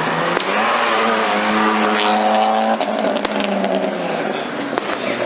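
Car engine revving hard, held high for about two seconds and then dropping off, over a noisy hiss, with several sharp cracks afterward.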